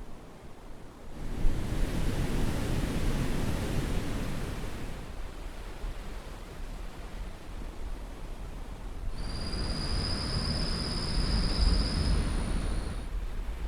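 Surf washing up on the shore in two swells, each lasting about four seconds, with a steadier hush between them. During the second swell a steady high-pitched tone sounds for about three seconds and then stops.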